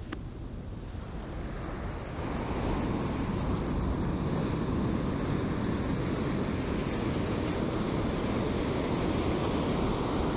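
Strong ocean surf breaking and washing up the sand, mixed with wind buffeting the microphone. The rush of water grows louder about two seconds in and stays strong.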